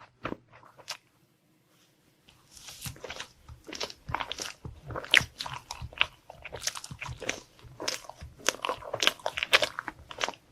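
Close-up eating sounds of desserts: a few small bites, a short pause, then about two seconds in a run of crisp crunching and chewing.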